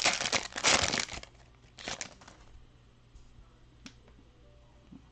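Foil wrapper of a Prizm soccer trading-card pack being torn open and crinkled, loudest in the first second, with a shorter crinkle about two seconds in and a single sharp tick near the end.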